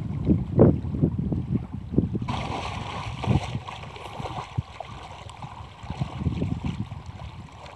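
Wind buffeting the microphone in uneven gusts over the wash of shallow river water.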